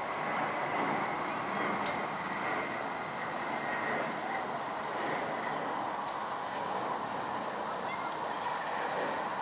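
Boeing 757 twin-jet airliner passing overhead on approach, its engines making a steady jet rush with a faint high whine held throughout.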